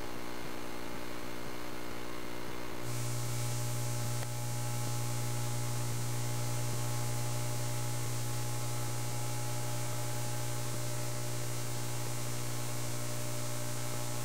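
Steady electrical hum with hiss on the audio feed, and no other sound. The hum and hiss step up about three seconds in and then hold level.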